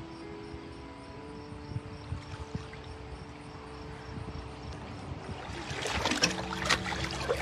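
Swimming-pool water sloshing and splashing as a swimmer surfaces and wades through it, building up over the last two seconds. Underneath, soft music with long held notes.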